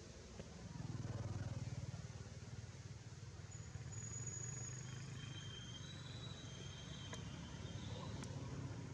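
A motor vehicle engine runs steadily in the background as a low hum. It swells about a second in, then holds at a lower level.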